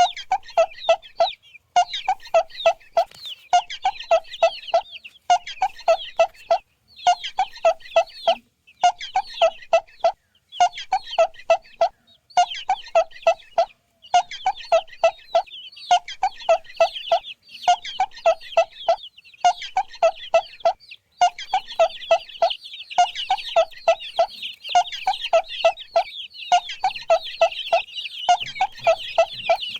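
Chickens clucking in quick runs of four or five clucks, about one run a second, over a continuous high chatter.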